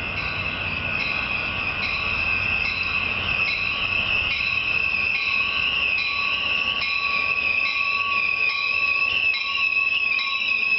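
Passenger train rolling past with a steady, high-pitched wheel squeal over a low rolling rumble, growing slightly louder.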